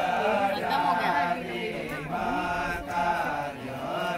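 Balinese men's voices chanting, some notes held and others sliding up and down in pitch.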